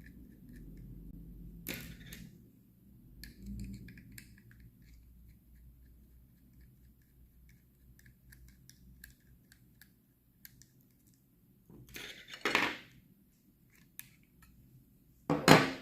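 Small clicks, scrapes and knocks of a hair trimmer's plastic and metal parts being handled and pulled apart during disassembly. There is a sharper click about two seconds in, a longer scrape around twelve seconds, and the loudest clatter just before the end.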